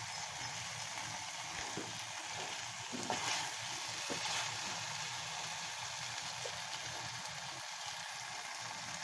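Chopped onion and capsicum sizzling in oil in a kadai: a steady, even hiss, with a faint tap about three seconds in.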